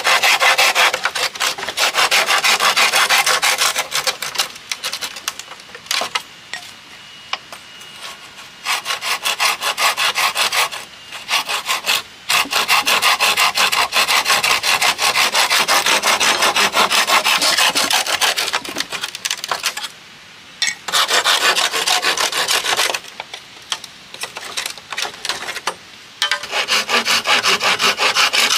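Hand saw cutting through green bamboo slats in rapid back-and-forth strokes. The sawing comes in several spells, broken by short pauses.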